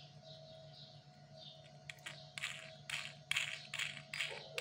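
Short dry rasps, about eight of them from around two seconds in, as a 3D-printed plastic nut is turned along a printed plastic bolt's threads.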